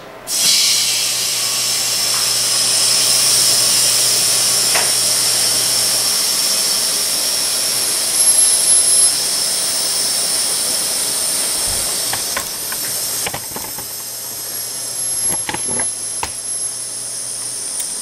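Compressed air hissing through a hose into a converted fiberglass water-softener tank as it is pressurized. The hiss starts suddenly and loud, with a low hum under it for the first several seconds, and eases off a little after about twelve seconds.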